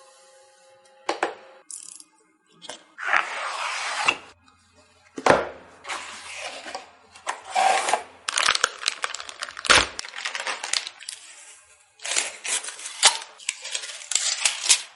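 Computer parts being handled and fitted during a PC build: sharp clicks and knocks between stretches of rustling and scraping, with a heavier knock about two-thirds of the way through.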